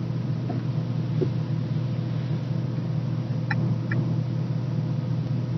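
A steady low mechanical hum, like an engine running, with two faint ticks about three and a half seconds in.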